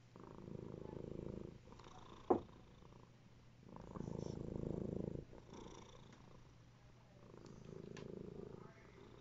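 A sleeping long-haired domestic cat purring, the purr swelling and fading in waves every three to four seconds with its breathing. A single short tap about two seconds in.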